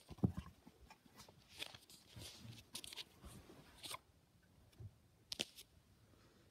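Soft, irregular rustling and scraping, with a low bump just after the start and two sharp clicks about five and a half seconds in: handling noise from a phone moving close to a cat and a hand brushing over the cat's fur on carpet.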